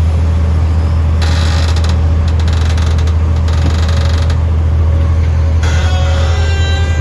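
Komatsu PC200 excavator's diesel engine running steadily under work, with stretches of metallic rattling and creaking from the machine about a second in, again around three and a half seconds, and near the end.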